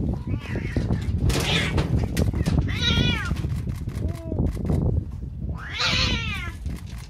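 Cats yowling at each other in a standoff: drawn-out, wavering cries that rise and fall, the loudest about three seconds and six seconds in, with a lower, shorter cry between them.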